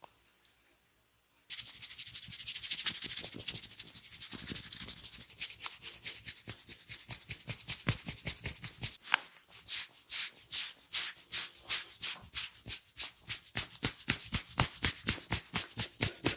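Head massage by hand: fast, vigorous rubbing over hair and scalp starts suddenly about a second and a half in, then gives way to rhythmic percussive hand strikes on the head, about five a second, growing louder near the end.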